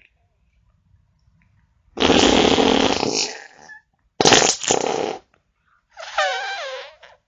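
Three farts one after another: a long, rough one about two seconds in, a shorter rough one about a second later, and a last one near the end with a wavering, higher pitch.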